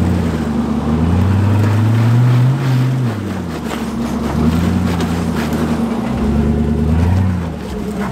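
Hummer H3 Alpha's 5.3-litre V8 revving up and easing off several times under heavy load as it crawls up a rock ledge.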